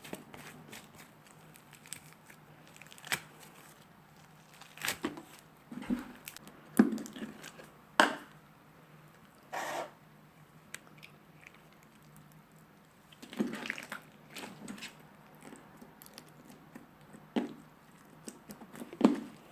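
Hands squishing and stretching slime, giving irregular sticky pops and crackles, the sharpest about seven and eight seconds in.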